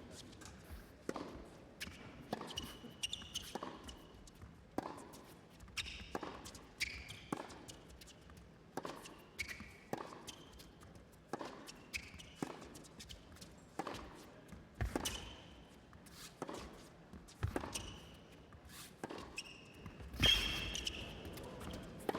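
Tennis rally on an indoor hard court: racket strikes and ball bounces trading back and forth about once a second, with shoes squeaking on the court between shots. A louder rush of sound comes near the end.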